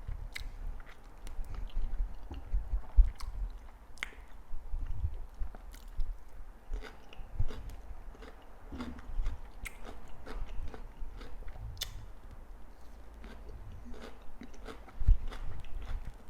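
Close-miked eating sounds: chewing and biting of fried plantain and tilapia, with irregular wet clicks and crunches of the mouth.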